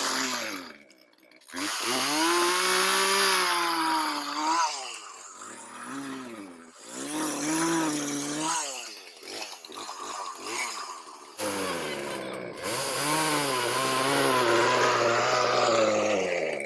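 Two-stroke chainsaw revving and cutting in several spells: a run of about three seconds, two short revs, then a long run in the second half, the pitch rising and falling as it loads and unloads in the wood.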